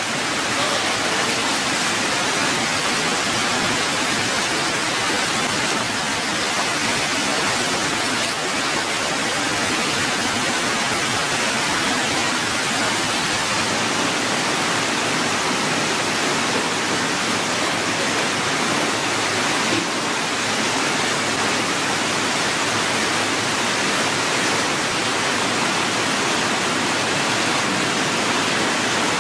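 Steady rush of running water flowing through hatchery egg trays, an even hiss with no breaks.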